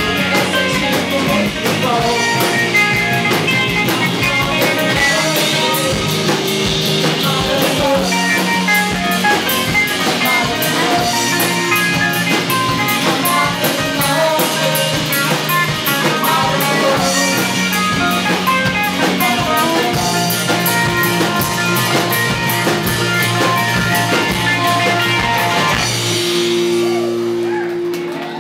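Live rock band playing electric and acoustic guitars over a drum kit with a steady beat. About 26 seconds in the drums stop and the song ends on a held chord that rings and fades out.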